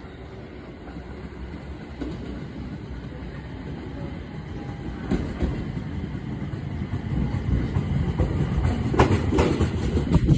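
JR local electric train pulling into the station, its running noise growing steadily louder as it nears. From about five seconds in, its wheels click over rail joints, with the loudest clicks near the end as the cars pass close by.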